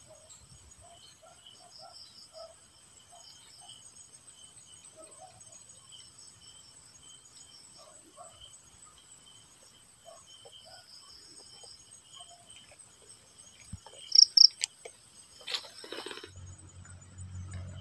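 Crickets and other insects chirping in several steady high trills, with a fast pulsing chirp at the very top. Near the end come two loud, short, sharp chirps, then a brief rustle and a low hum.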